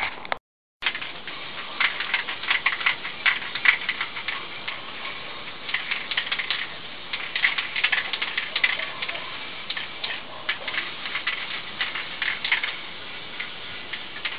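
Aerosol spray paint can being sprayed onto a wheel rim in short bursts, heard as irregular clusters of crackling clicks.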